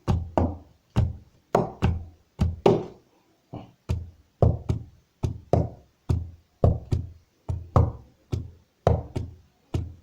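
Hand drumming on a wooden table: a simple steady rhythm of about two strokes a second, often in pairs. Deep closed-fist bass strikes alternate with sharper, higher fingertip taps.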